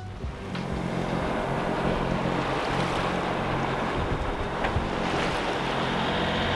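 Sailboat under way at sea: wind and water rushing past the hull, with a steady low engine hum underneath and wind buffeting the microphone.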